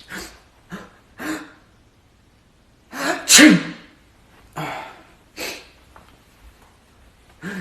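A run of human sneezes, one after another: short ones in the first second and a half and again near the middle, and the loudest about three seconds in, a sharp intake of breath followed by a forceful sneeze.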